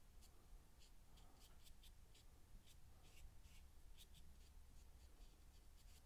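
Faint scratchy dabs and strokes of a bristle paintbrush on canvas, a dozen or so short ticks at irregular intervals, over a low steady room hum.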